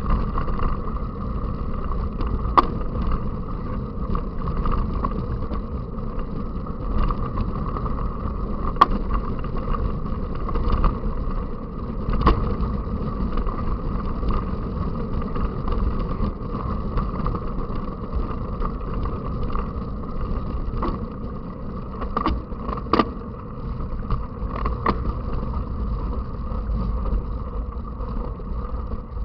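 Steady rushing and rumbling of a mountain bike under way, with a dozen or so sharp clicks and knocks as the bike rattles over the ground.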